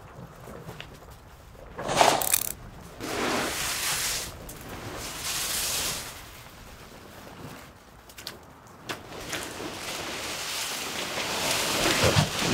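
A heavy tarp rustling and flapping in several bursts as it is dragged off a bandsaw mill, followed near the end by a rising mechanical rattle.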